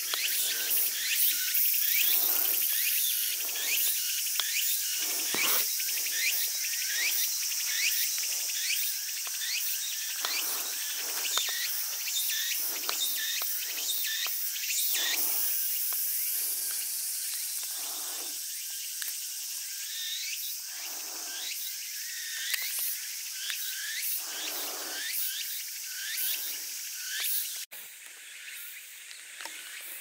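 Summer insect chorus: a steady high-pitched shrilling laced with many short rising chirps. Soft thuds come about once every second or so.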